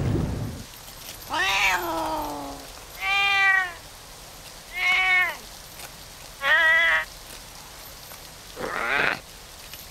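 Cartoon cat yowling: five drawn-out meows, one every second and a half or so, the first long and falling in pitch, over the faint steady hiss of a fountain. A washing machine's churning cuts off in the first half second.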